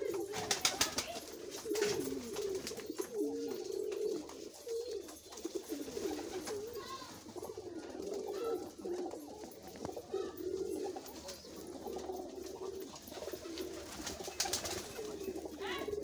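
Many domestic pigeons cooing continuously in overlapping, wavering calls. Brief bursts of wing flapping come about a second in and again near the end.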